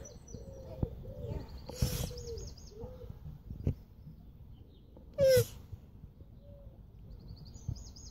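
Male Hermann's tortoise mounting a shoe and giving his mating cries: short squeaky calls, two clear ones about three seconds apart with the second the loudest, and fainter squeaks and small knocks between.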